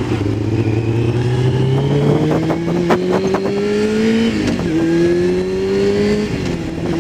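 Yamaha YZF-R6 inline-four sportbike engine accelerating hard. Its pitch climbs steadily and drops back with each upshift, about two and a half and four and a half seconds in and again near the end. Wind noise runs underneath.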